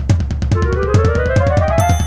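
Backing music with a fast drum-kit beat. From about half a second in, a tone rises steadily in pitch to the end, a sound effect for climbing up.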